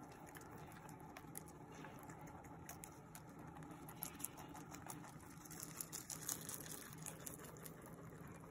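A lop-eared rabbit chewing fresh cilantro stems: faint, quick, crisp crunching clicks, busiest around the middle.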